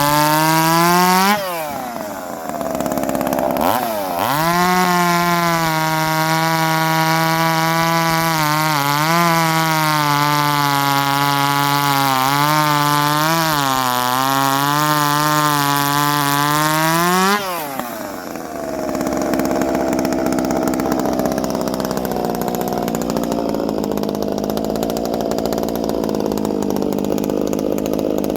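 Two-stroke chainsaw cutting a log. It revs high, drops off about a second and a half in, then comes back up and holds a steady high pitch under load with a few brief dips. About seventeen seconds in the pitch falls away suddenly, and a rougher, noisier saw sound with no clear engine note runs on.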